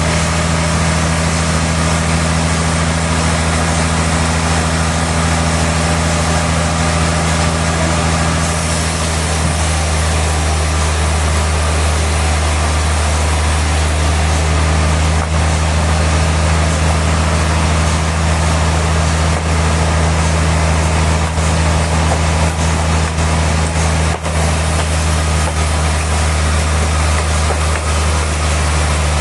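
Sawmill machinery running steadily: a constant engine hum with a broad hiss over it.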